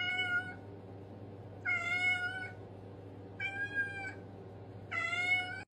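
Domestic cat meowing four times, evenly spaced, each call short and clear, over a faint steady low hum.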